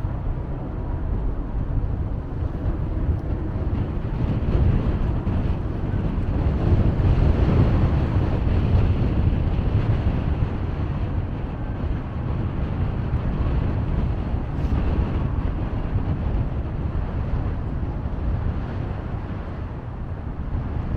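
Strong blizzard wind buffeting the microphone, a dense low rumble that swells and eases in gusts.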